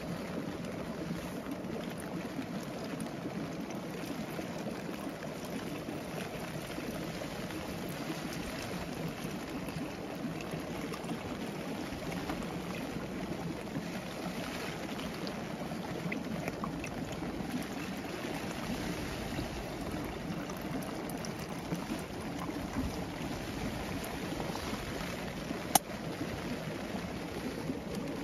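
Hose-fed Naturehike gas canister stove burning steadily under an aluminium pot, heating water for a meal pouch, with a low, even rush throughout. A single sharp click comes near the end.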